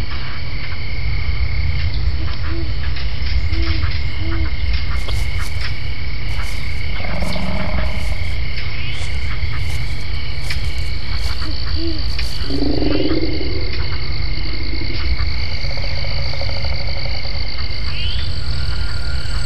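Night ambience of repeated frog-like croaking calls over a steady high-pitched chorus and a constant deep low rumble, with a run of sharp clicks about halfway through.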